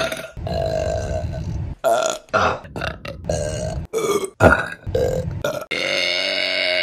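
Women burping loudly in quick succession, a string of separate burps, some short and some drawn out. A long, sustained burp starts near the end.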